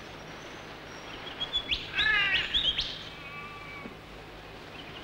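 Bird calls: a quick run of chirps and whistles about two seconds in, then a few fainter whistles, over a steady hiss.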